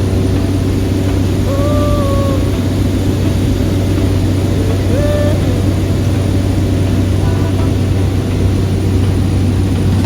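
Steady cabin drone of a Cessna Grand Caravan's single turboprop engine and propeller, a constant low hum under a dense rumble. A few brief sung notes of a song come through about two and five seconds in.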